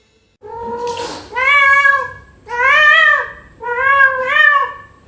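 Domestic cat meowing: a short breathy start, then three long drawn-out meows, each rising and then falling in pitch.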